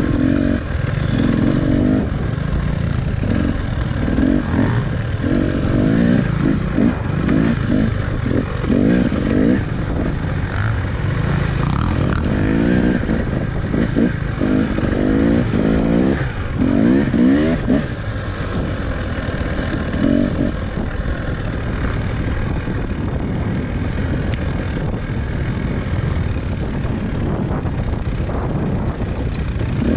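Dirt bike engine revving in repeated short bursts as the throttle is opened and closed while riding. It settles to a steadier, lower run after about 20 seconds.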